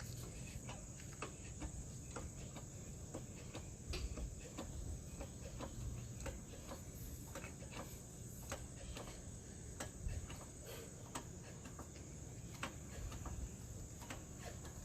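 Car jack being worked to raise the car: irregular light clicks and ticks, a few a second, over a steady high-pitched hiss.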